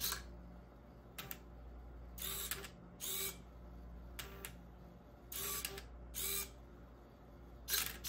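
Hobby servos and a stepper motor of a 3D-printed Rubik's cube solving robot making short motor moves, about eight quick whirring bursts well under a second each, irregularly spaced, over a low steady hum.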